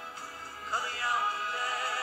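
Song with a sung voice. About two-thirds of a second in, a note slides up and is held with a wavering vibrato, and the music grows louder.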